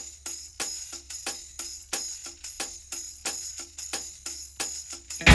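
Background music: a sparse intro of jingling percussion hits, about three a second, over a faint low drone, with the full band coming in loudly right at the end.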